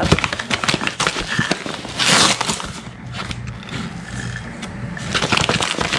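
Granulated sugar being scooped from a paper bag with a plastic measuring cup and poured into a stainless steel mixing bowl. The bag crinkles and the cup scrapes, and the sugar rushes in with a hiss about two seconds in and again near the end.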